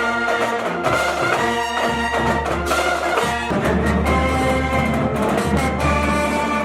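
Marching band brass playing a tune, with held chords over a low bass line.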